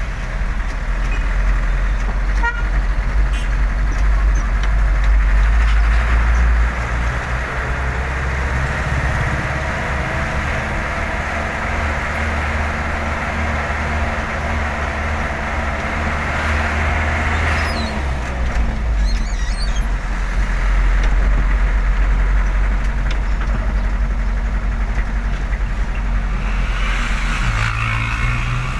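A 4x4 truck's engine running with road noise as it drives through town traffic, heard from inside the cab as a steady low drone. A short horn toot sounds near the end.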